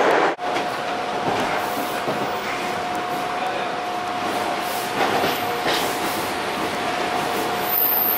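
Toronto subway train running on open-air track as another subway train passes close alongside: a steady rumble of wheels on rail, a constant high tone over it, and a few faint clicks.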